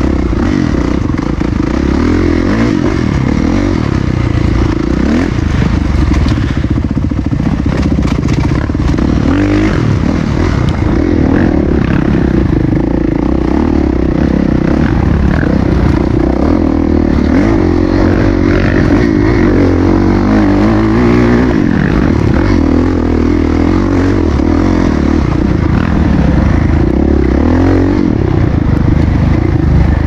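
Dirt bike engine running loud, heard from on the bike, its pitch rising and falling again and again as the throttle opens and closes over a rough forest trail.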